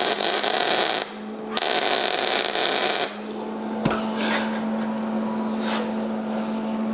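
Longevity Migweld 140 MIG welder arc crackling on thin steel hand-truck tubing in two welds: the first stops about a second in, the second runs from about a second and a half to three seconds in. Afterwards a steady hum continues, with one light knock about four seconds in.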